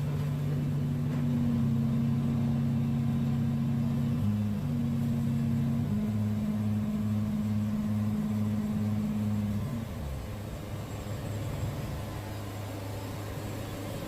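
Wood-Mizer sawmill running with a steady machine hum that shifts pitch about four and six seconds in, pulses for a few seconds, then drops lower and quieter about ten seconds in.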